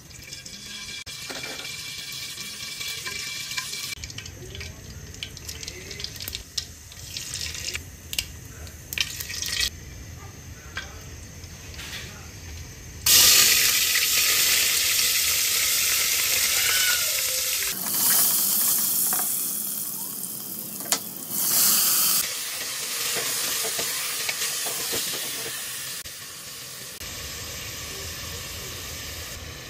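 Cooking oil poured into an aluminium pressure cooker, with scattered clicks and knocks of utensils. About halfway through, sliced onions go into the hot oil and start sizzling loudly and suddenly. A few seconds later there is a second, brighter burst of sizzling as more food goes in, and it then settles into quieter frying with stirring.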